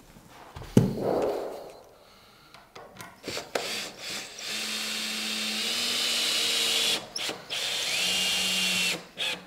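Cordless drill-driver driving screws into the corner joint of a wooden door frame: one steady run of about two and a half seconds, a pause, then a second shorter run that rises in pitch as it spins up. A sharp knock, the loudest sound, about a second in.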